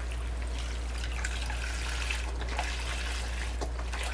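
Chicken broth pouring from a carton into a pan in a steady trickle, over a steady low hum.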